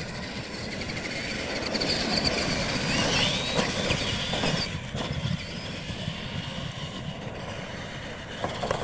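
Radio-controlled monster trucks racing on dirt, their electric motors and gears whining. The whine rises in pitch about three seconds in as a truck accelerates, and again near the end.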